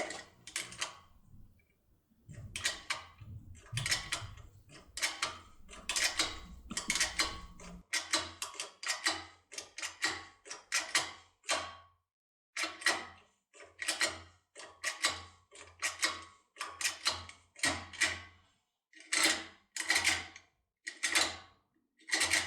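SECUREMME 3+3 turbodecoder being worked inside a two-turn lock, making a long series of short metallic clicks and scrapes at about one to two a second. There is a low rumble of handling in the first few seconds.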